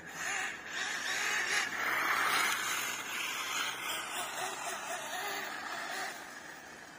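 Arrma Kraton 6S RC car on Schumacher tyres driving across paving: a hiss of tyres and motor, loudest a second or two in and easing off toward the end.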